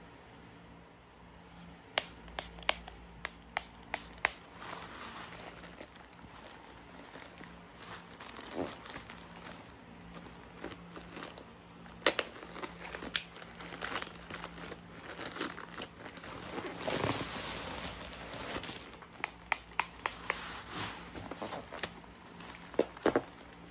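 Plastic poly mailer bag crinkling and being torn open by hand, with many small sharp crackles and rustles.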